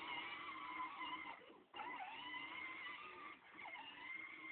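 Electric drive motor and gearbox of a battery-powered John Deere ride-on toy tractor whining steadily as it drives over grass. The whine cuts out briefly about a second and a half in and rises back up in pitch as the motor restarts.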